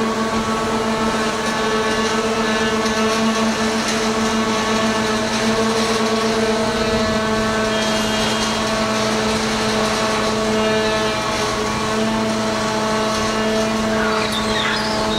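Large mobile crane's diesel engine running at a steady speed: a constant hum whose pitch does not change. A brief high wavering sound comes in near the end.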